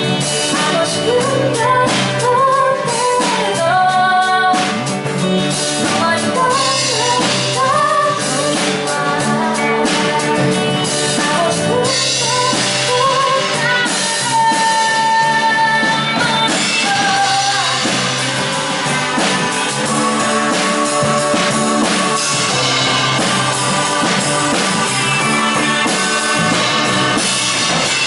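A small live band playing a song: a singer's voice over acoustic guitar, bass, electric guitar, keyboard and drum kit.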